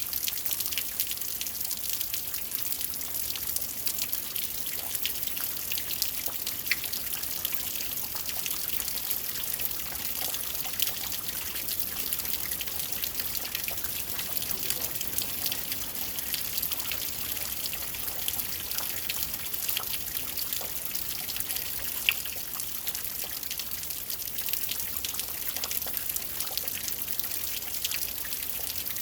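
Steady rainfall: an even hiss with many separate drop hits throughout, and one sharper drop hit about two-thirds of the way through.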